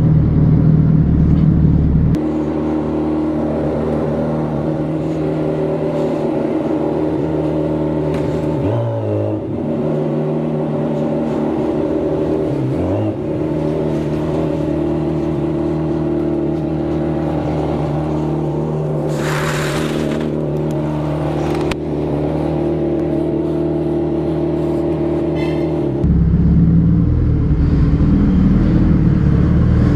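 Suzuki Hayabusa's inline-four engine through a Racefit aftermarket exhaust, running steadily at idle and low speed with a couple of brief dips in pitch. A short hiss comes about two-thirds of the way through, and near the end the engine note grows fuller and louder.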